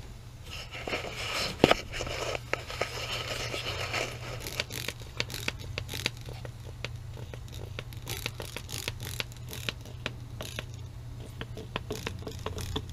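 Trigger spray bottle squirting leak-detector solution onto a gas shutoff valve and its fittings: a long run of short, sharp spray clicks, after a few seconds of rustling and scraping handling noise.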